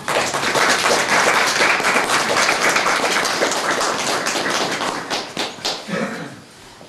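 Small audience applauding a singer, many hands clapping at once, then thinning to a few scattered claps about five to six seconds in.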